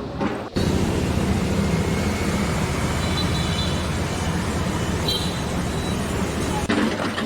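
Steady mechanical rumble of running engines, like road traffic or machinery, with faint brief high tones about three and five seconds in.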